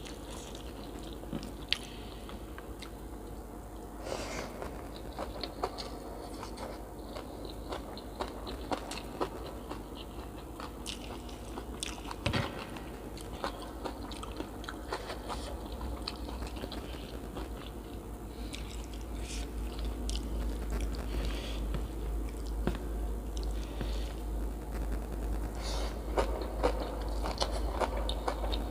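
Close-miked eating: a person chewing and biting food, with many irregular crunchy clicks. A steady low hum runs underneath and grows louder in the last third.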